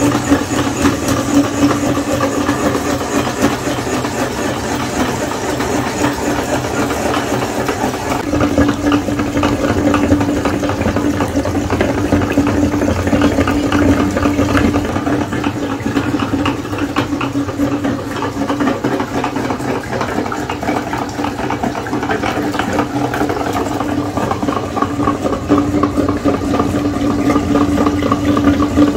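Metal meat grinder running, forcing coloured jelly and ice through its perforated plate: a steady mechanical hum with continuous rattling.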